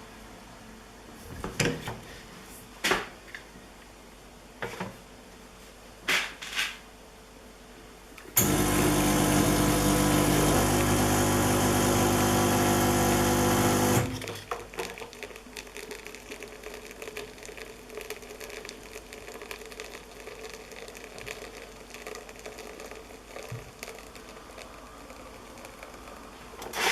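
Londinium I lever espresso machine pulling a shot: a few clicks and knocks, then a steady electric hum for about five and a half seconds that cuts off suddenly, followed by a faint crackling trickle as the shot runs into the cup.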